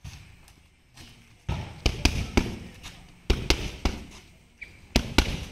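Boxing gloves striking focus mitts, a sharp slap with each punch. The punches come in quick runs of two or three with short pauses between them, starting about a second and a half in.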